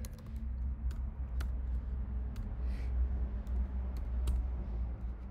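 Typing on a computer keyboard: scattered, irregular key clicks over a steady low hum.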